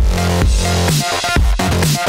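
Electronic dance music with a steady, heavy bass beat, about two beats a second.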